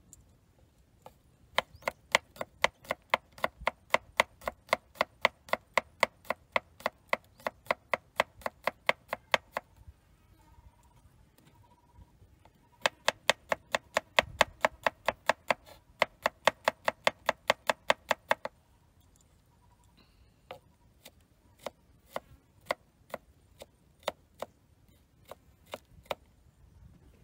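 Kitchen knife chopping on a wooden cutting board: quick, even strokes about four a second in two long runs, then slower, scattered chops near the end.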